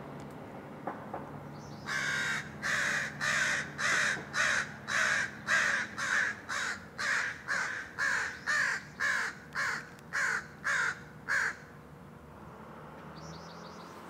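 American crow cawing in a fast run of about eighteen caws, roughly two a second, each dropping in pitch; the run starts about two seconds in and stops a couple of seconds before the end.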